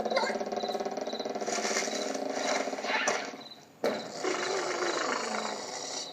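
Cartoon comedy sound effects: a long buzzy noise lasting almost four seconds, then a sharp click, then a second buzzy noise of about two seconds.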